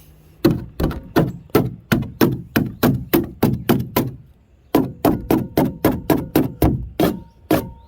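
Rapid sharp knocks, about three or four a second with a brief pause midway, as a tool is struck against an old plastic patch to knock it off a plastic kayak hull.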